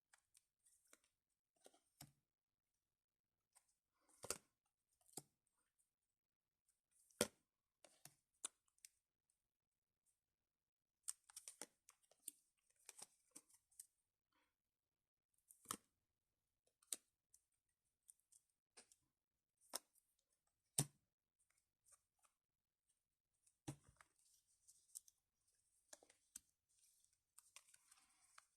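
Yu-Gi-Oh cards and packaging being handled: scattered clicks and taps of card stock and plastic, with a few sharper knocks and a short crinkly rustle near the end.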